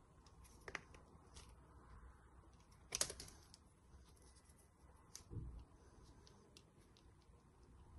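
Side cutters working the insulation of a short red wire: a few small clicks, one sharp snip about three seconds in, and a dull thump a couple of seconds later.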